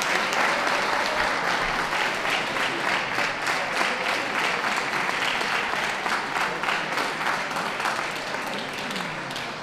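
Audience applauding steadily, many hands clapping at once, slowly dying down toward the end.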